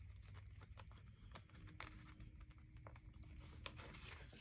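Faint clicks and light rattling of plastic LEGO bricks being handled and pressed together, with one sharper click about three and a half seconds in.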